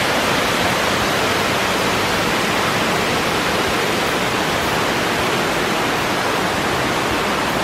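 Jones Run Falls, a mountain stream cascading down rock ledges: a steady, even rush of white water.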